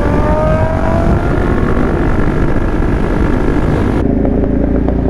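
Motorcycle engine running under load, its pitch rising slowly as it accelerates, under a loud rushing noise that drops away about four seconds in.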